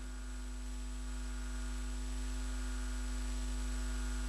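Steady electrical mains hum with a faint hiss, a low buzz with a thin high whine above it, growing slowly a little louder.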